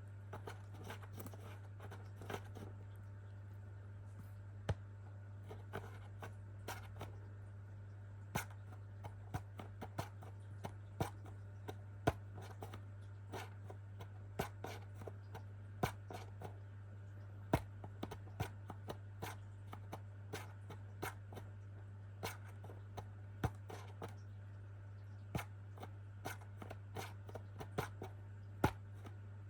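A pet making irregular clicks and scrapes, one to three a second and uneven in loudness, over a steady low hum.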